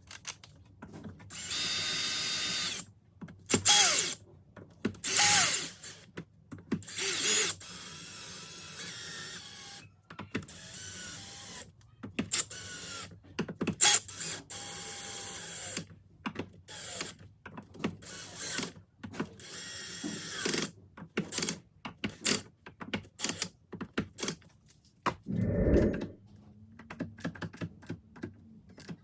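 Bench work on an air impact wrench: a few short whirring runs of a small power tool, with many clicks, taps and scrapes of metal parts and tools in between.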